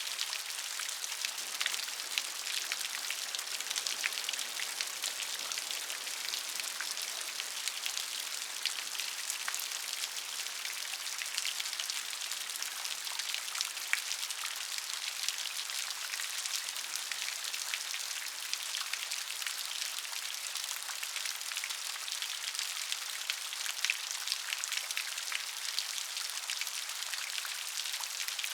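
Rain falling off a roof, a steady hiss of rain dense with many small pattering drops.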